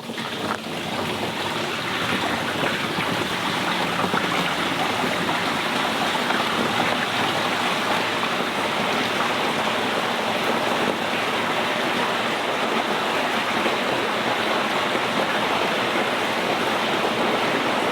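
Water rushing steadily into a plastic water tank, starting suddenly and building over the first couple of seconds. The tank is being filled to test a freshly welded plastic patch for leaks.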